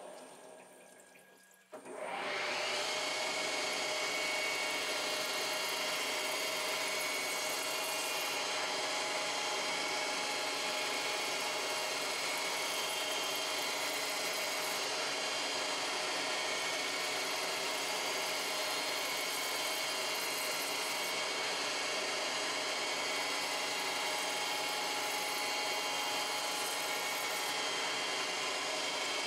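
Lathe machining aluminium rod under flood coolant: the spindle and motor running steadily with coolant splashing over the work. The sound fades to near silence just after the start, then comes back abruptly about two seconds in.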